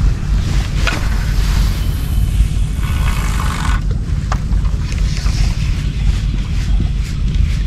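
Wind buffeting the microphone outdoors: a steady low rumble, with a few faint clicks and a short hiss about three seconds in.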